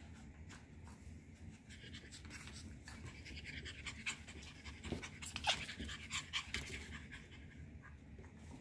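Cockapoo puppies panting and scuffling as they tug and drag a towel across a hardwood floor, with many small clicks. The sound is busiest in the middle, with a brief squeak a little past halfway.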